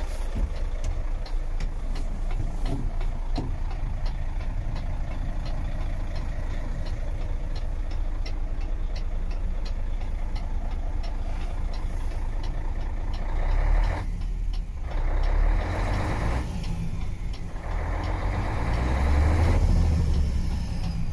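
Mercedes-Benz Actros 2636's V6 diesel engine idling, heard from inside the cab, with a regular light ticking of the hazard-light flasher over it. The low engine note swells twice, about two-thirds of the way in and near the end.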